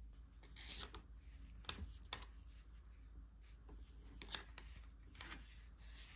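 Faint rustle of yarn and scattered light clicks and taps from a wooden knitting needle as stitches are cast on by hand.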